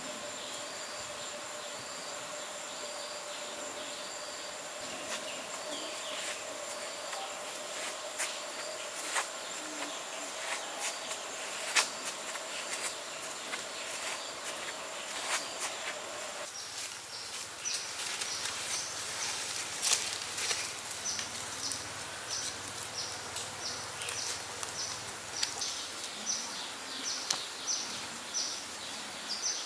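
Forest ambience of insects: a steady high drone with scattered clicks, changing about halfway through to a run of short, high chirps repeating about twice a second.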